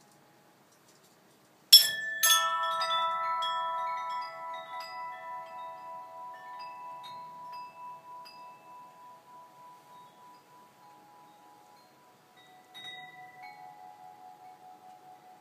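Chimes struck sharply, a cluster of ringing metallic tones that slowly fade over about ten seconds; a second, lighter strike comes near the end.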